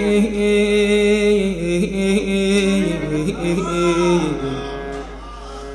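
Male voice singing a sad Iraqi lament (latmiya), holding long, slightly wavering notes over a steady backing. The voice bends through a short phrase past the middle, and the sound grows quieter near the end.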